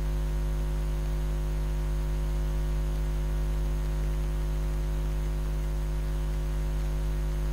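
Steady electrical mains hum: a low, unchanging buzz with a ladder of higher overtones.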